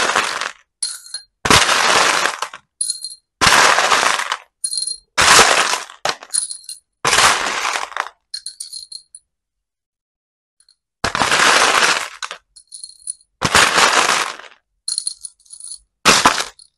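Small plastic beads rattling as a metal spoon scoops them from a plastic tub and tips them into a small glass cup, with bright clinks of beads against the glass. About seven scoops come one after another, with a pause of a few seconds in the middle.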